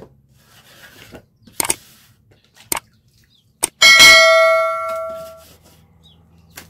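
Three sharp mouse-click sounds, then about four seconds in a loud bell chime that rings and fades over about a second and a half: a 'like, subscribe, notification bell' sound effect.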